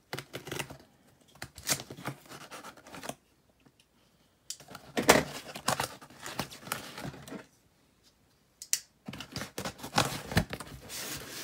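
Cardboard shipping box being handled and opened: irregular scraping, rustling and tearing, with two short pauses.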